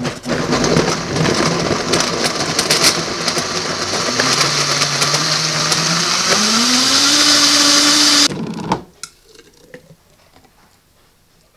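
Vitamix blender running at full tilt, blending a smoothie of frozen bananas. Its motor pitch climbs as the speed dial is turned up about four to seven seconds in, then it cuts off suddenly about eight seconds in.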